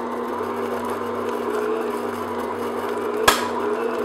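Electric stand mixer running steadily on medium speed, its paddle attachment beating butter and cream cheese in a glass bowl. A single sharp knock comes about three seconds in.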